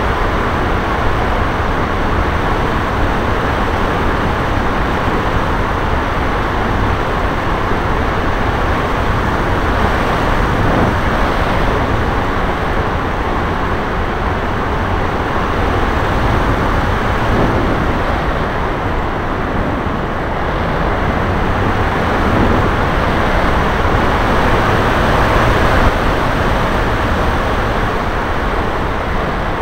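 Steady rushing of air buffeting the microphone of a small camera carried aloft on a Max 1500 motor glider in flight, heavy and low, with faint shifts in pitch as the plane turns.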